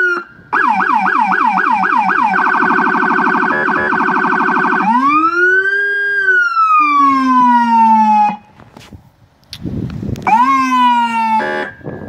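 Vehicle siren with a Federal Signal Rumbler low-frequency speaker adding a deep tone under the main one. It runs through its tones: a wail, then a fast yelp, then a rapid warble, then another long wail that winds down and cuts off about eight seconds in. A short wail comes again near the end.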